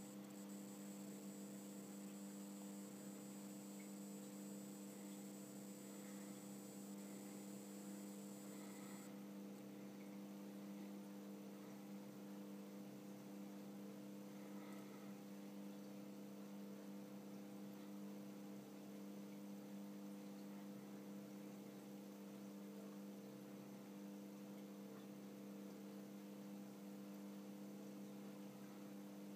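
Faint, steady electrical hum made of a few low held tones. A faint high whine above it cuts off suddenly about nine seconds in.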